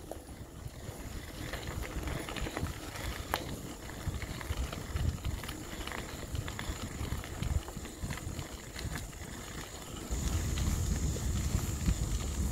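Bicycle tyres rolling over a gravel trail, with a steady low rumble and scattered small clicks and rattles; the rumble gets louder about ten seconds in.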